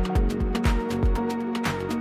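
Electronic background music with a steady kick-drum beat.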